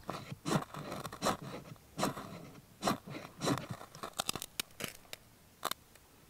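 Fire steel (ferro rod) scraped in long strokes against fine feather-stick shavings to throw sparks, about five scrapes a little under a second apart. About four seconds in comes a quick run of small sharp cracks, then one more snap.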